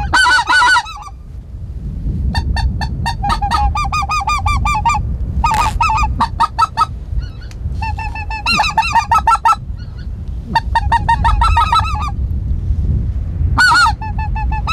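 A mouth-blown goose call sounding about six bursts of quick, clipped honks, imitating white-fronted geese to draw in a passing flock. A steady low wind rumble on the microphone lies underneath.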